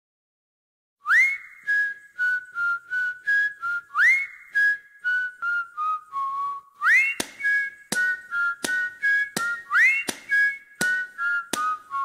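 Background music led by a whistled melody. Each phrase opens with an upward swoop and steps down through short notes, and the phrase repeats. About seven seconds in, sharp clicks join on the beat.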